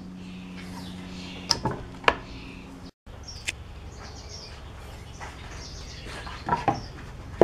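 Table saw fence and blade-height adjustment: a few sharp metallic clicks and knocks over a low steady hum, with faint bird chirps in the background. The saw blade is not running.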